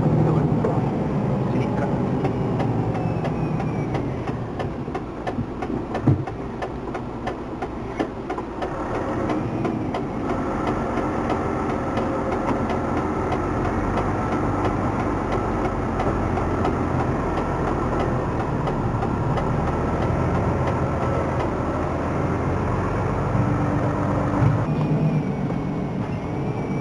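Mercedes-Benz Actros 3341 truck's V6 diesel engine running under load as the truck drives a rough dirt track, heard from inside the cab. A couple of sharp knocks come a few seconds in, and the engine note changes about ten seconds in, taking on a steady higher whine until near the end.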